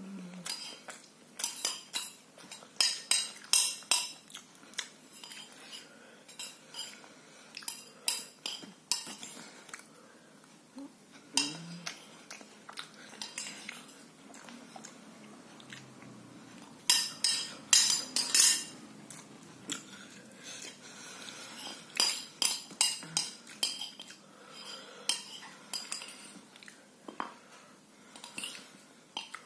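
Metal cutlery clinking and scraping against a plate while noodles are eaten. The quick sharp clinks come in clusters, busiest a few seconds in and again past the halfway point.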